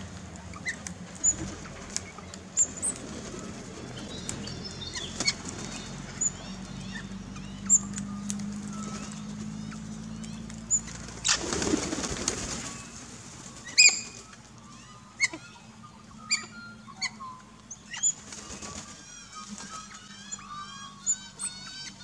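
Galah's wings flapping as it takes off, a burst of about a second and a half just past the middle. Short, sharp high bird chirps come throughout, with a run of warbling twitter near the end.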